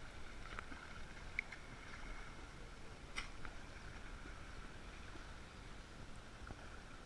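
Sea water sloshing against a GoPro's waterproof housing held at the surface, heard muffled through the case over a faint steady hum, with a few short sharp clicks, the clearest about three seconds in.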